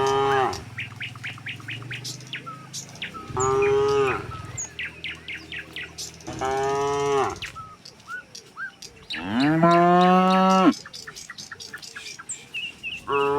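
Cattle mooing in turn: several long, deep moos a few seconds apart, the longest and loudest about two-thirds of the way through. Small birds chirp between the calls.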